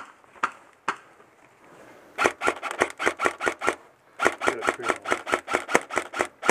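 M4-style airsoft rifle firing: three single shots in the first second, then two long strings of rapid shots at about seven a second, starting about two seconds in.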